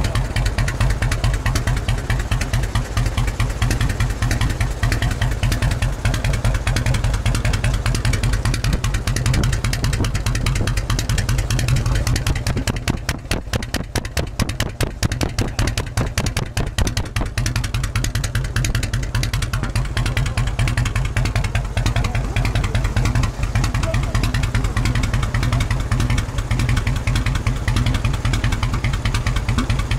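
Harley-Davidson V-twin motorcycle engine idling steadily with an even, pulsing beat through very long fishtail mufflers.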